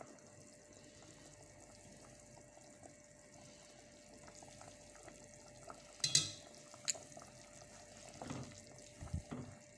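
Quiet kitchen handling sounds over a faint steady hum: small clicks and knocks of utensils and containers, with a sharp clink about six seconds in and a lighter one just after.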